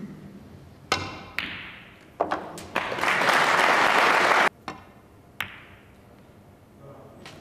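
Sharp clicks of snooker balls striking, then a burst of audience applause that cuts off suddenly, followed by a few more single ball clicks.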